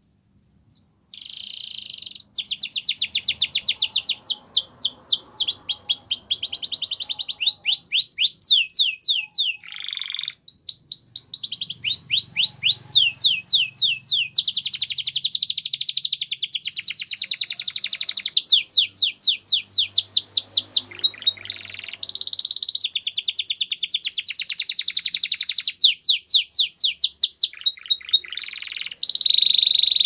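Canary singing a long song of rapid, high trills. The repeated notes change pattern from phrase to phrase, with two short breaks.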